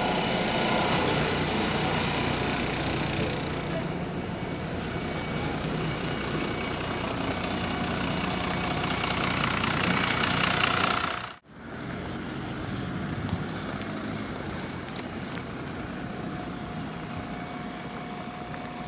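MAZ 203.065 city bus running, a steady engine drone with cabin rattle. It cuts off sharply about eleven seconds in and resumes a little quieter.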